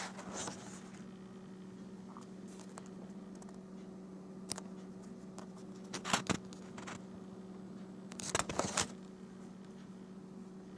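Pages of a spiral-bound paper booklet being turned and handled: short paper rustles near the start, around six seconds in and again at about eight and a half seconds, over a steady low hum.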